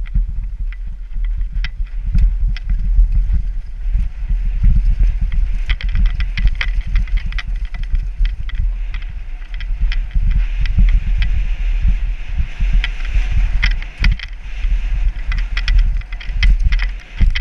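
Wind buffeting a helmet-mounted camera's microphone during a fast downhill bicycle ride, a heavy rumble, with irregular rattles and knocks from the bike over the road surface.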